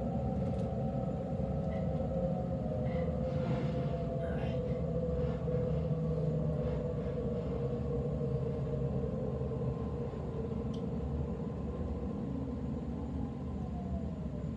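Sydney Trains Waratah B-set electric train running, heard from inside the carriage: a steady rumble of the wheels on the track under a whine from the traction motors that glides slowly down in pitch as the train slows.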